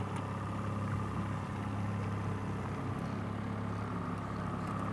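Fishing boat's outboard motor running steadily at slow trolling speed, an even, unchanging hum.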